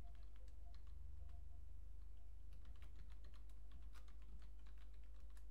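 Keystrokes on a computer keyboard: a scattering of sharp key clicks that grow quicker and denser in the second half, as a username and password are typed at a terminal login, over a low steady hum.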